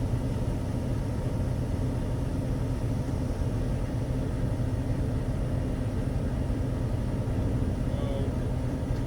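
Heavy diesel engine idling steadily, a low even rumble.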